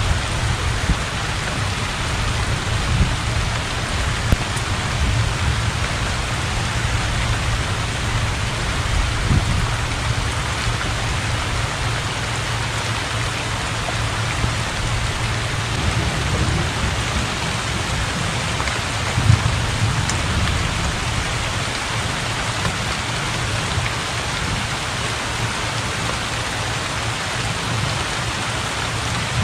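Heavy rain falling steadily onto a flooded pond, an even hiss of drops hitting water. A low rumble runs underneath and swells briefly about two-thirds of the way through.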